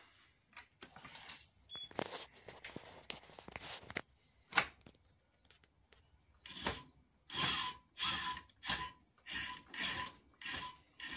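Small DC motor driving a lifter arm through a reduction gear, run in short pulses from a radio-control stick. In the second half there are about seven whirring bursts, each with a steady whine. Before that come a few clicks and one sharp knock.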